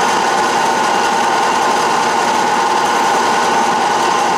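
Atlas metal lathe running, turning a small water-hardening tool steel pin with a light cut. Noisy, with a steady whine strongest around one high pitch.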